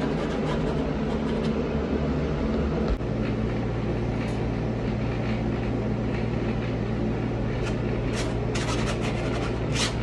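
Steady mechanical hum of a window air conditioner running, its low tone shifting abruptly about three seconds in. Near the end a wide paintbrush makes a few quick scratchy strokes across the canvas.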